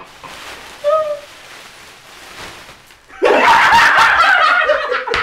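A plastic bag rustling as it is pulled off someone's head, then about three seconds in, men break into loud laughter.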